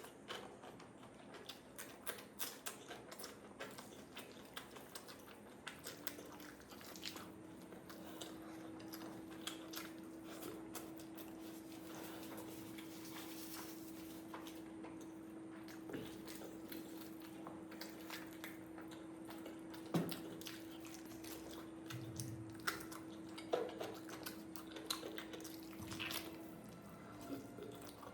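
Close-up eating sounds: curry and rice being eaten off a plate, with wet squishing, chewing and scattered light clicks and taps. A faint steady hum comes in about a quarter of the way through and stops near the end.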